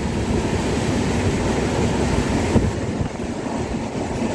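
Express passenger train running: a steady rumble of wheels and coaches on the rails.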